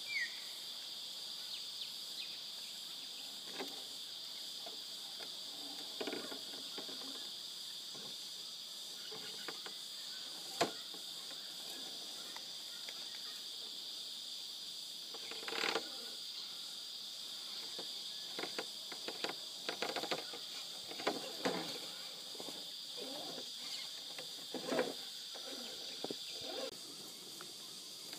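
Insects buzzing steadily at a high pitch. Over it come scattered clicks and short scrapes, busier in the second half, from a scale RC rock crawler's tyres and chassis working over the boulders.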